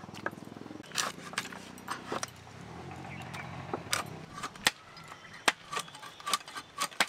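Irregular sharp knocks and clicks as a large black pomfret is cut into chunks on a boti blade, its firm flesh and bones being hard to cut, with metal clinks from the cutting. A low steady hum sounds underneath in the first second.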